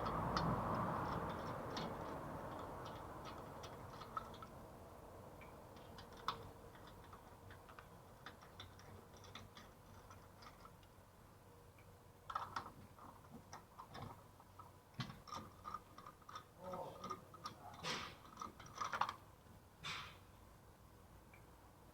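Scattered metallic clicks and clinks of hand tools and parts during brake and hub work, sparse at first and coming in quick clusters in the second half. A faint noise fades away over the first few seconds.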